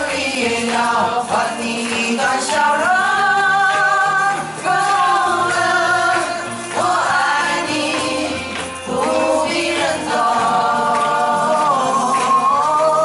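A male vocal duo and a children's chorus singing a Mandarin pop ballad together into microphones. Long held notes slide up into each new phrase.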